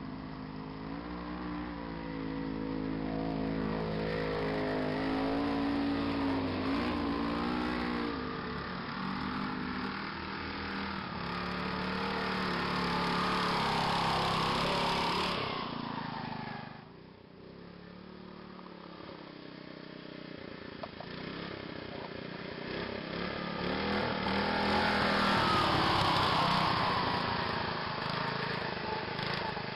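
Small engine of a modified racing riding lawn mower driving over dirt, its pitch rising and falling as the throttle is feathered rather than held wide open. It gets louder as the mower passes close about halfway through, drops away abruptly for a moment, then builds again near the end.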